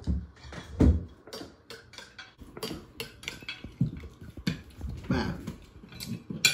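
Metal ladle and cutlery clinking against a glass serving bowl and plates as soup is served at the table, a string of short clinks with a couple of dull knocks near the start.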